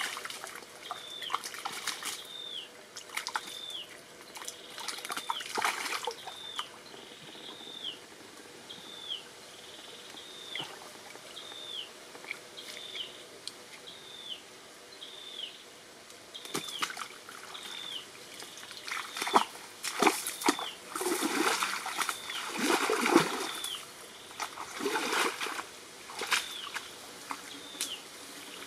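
Shallow muddy stream water splashing and sloshing as hands grope through it, with the splashing loudest for several seconds about two-thirds of the way through. A high, falling animal call repeats about once a second behind it.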